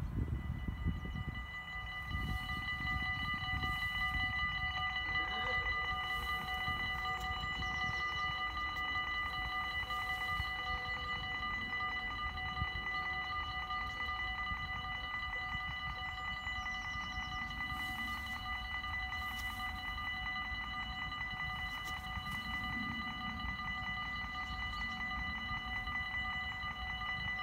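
Dutch automatic level-crossing bells ringing, a rapid, steady, unbroken ringing that warns of an approaching train, with a low rumble underneath.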